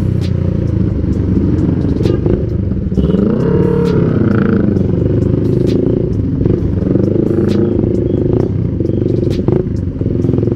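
Motorcycle engine running in slow traffic, its pitch rising and falling as the throttle is opened and eased off, with scattered sharp clicks over it.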